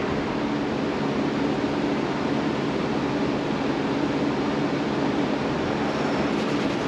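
Steady rushing background noise with a low hum underneath, and a few faint clicks near the end.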